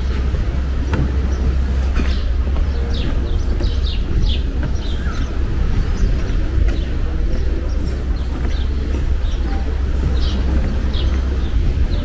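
Outdoor ambience: a steady low rumble throughout, with small birds chirping briefly and repeatedly over it.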